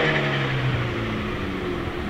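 Mini Cooper S F56's turbocharged four-cylinder through a decat Fi straight-pipe exhaust, off the throttle after a rev and running at low, steady revs, the note sagging slightly as the car rolls slowly forward.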